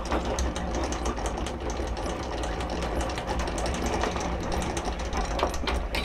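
Electric anchor windlass hauling in the anchor chain: the motor runs steadily under a rapid clatter of chain links passing over the gypsy, with a low hum beneath.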